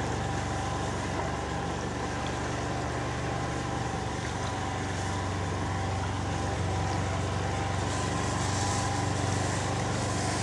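Small engine running steadily at low revs, holding one pitch throughout.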